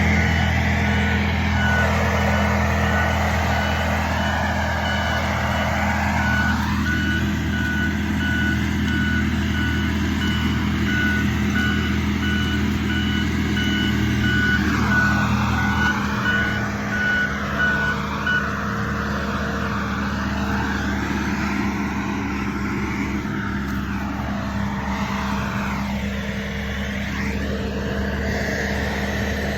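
Skid steer engine running steadily while mowing with a bush hog attachment, with its backup alarm beeping at an even rate until about two thirds of the way through.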